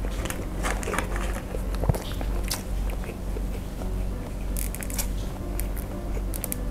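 Close-miked chewing of a spicy sausage in gochujang sauce, with wet mouth sounds and many small sharp clicks.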